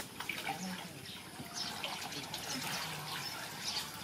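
Water splashing and dribbling as a plastic basket is dipped into a shallow tank and lifted out, with water running off it.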